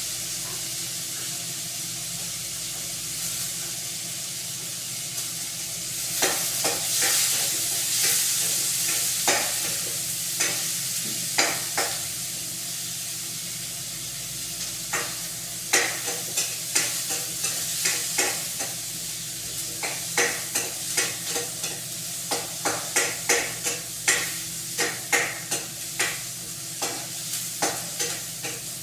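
Food sizzling as it fries in a pan, with a cooking utensil stirring it and knocking and scraping against the pan. The knocks start a few seconds in and become regular, one or two a second, in the second half.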